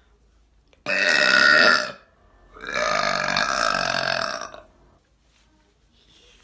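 A woman burps twice, loudly. The first burp starts abruptly about a second in and lasts about a second. The second is longer, about two seconds.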